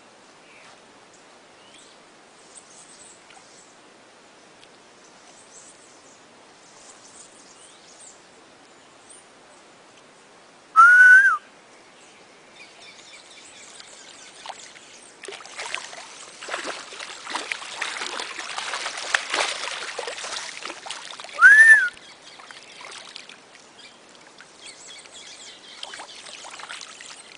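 Water splashing and churning in the shallows around a caiman being shocked by an electric eel, heaviest for several seconds past the middle. Two loud whistled bird calls, each a single note that rises and falls in about half a second, come about eleven seconds in and again ten seconds later, with faint high bird chirps before them.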